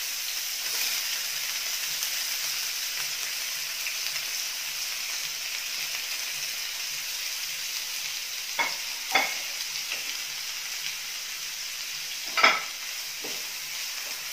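Chopped onions sizzling steadily in hot coconut oil in a pan on full flame. A few sharp knocks of a spatula against the pan stand out, the loudest about twelve seconds in.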